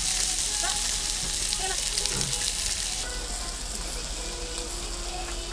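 Slices of pork belly sizzling steadily as they fry on a black griddle pan over a portable gas stove, the hiss easing a little about three seconds in.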